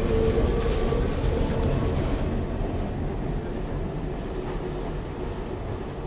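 Kirnitzschtalbahn tram train rolling away along its track, a rumble with a steady hum that drops out about two seconds in, then the rumble slowly fades as the tram recedes.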